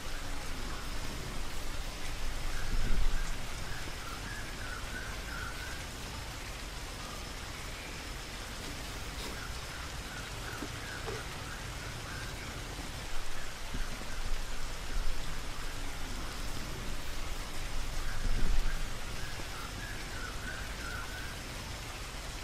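Steady outdoor hiss with short high chirps now and then, and louder rustling and knocking of thin sticks being handled and bound together, about three seconds in and again around thirteen and eighteen seconds.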